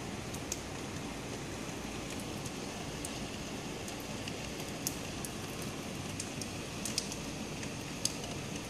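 Steady rain falling, with scattered sharp taps of drops striking a hard surface close by, a few louder ones about five, seven and eight seconds in.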